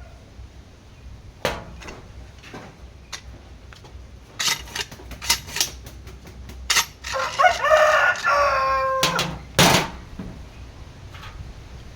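A rooster crows once, a call of about two seconds past the middle, among scattered sharp knocks and clicks.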